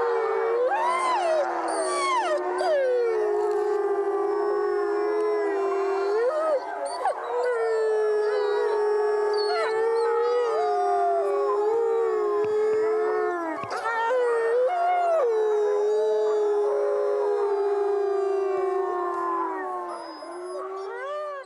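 A pack of gray wolves howling in chorus: several long, overlapping howls at different pitches, some sliding up and down, fading out at the end.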